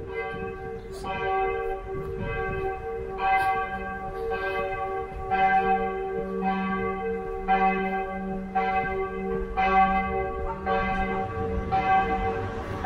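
Church bells ringing, a new strike about once a second over the long, overlapping ring of the earlier strokes.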